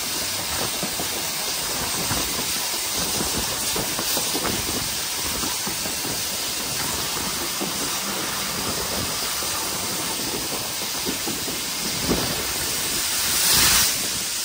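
LSWR T3 class 4-4-0 steam locomotive No. 563 running at speed: a steady rush of steam and hiss with many small irregular knocks, and a louder burst of hiss near the end.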